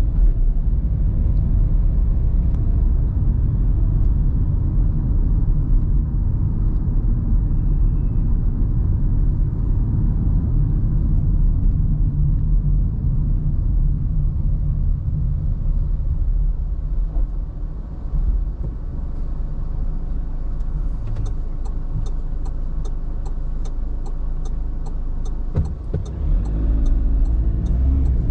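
Interior rumble of a car being driven: engine and tyre noise, easing off briefly past the middle and building again. About three-quarters of the way in, a turn-signal relay starts ticking steadily, about three clicks a second, and there is a single knock shortly before the end.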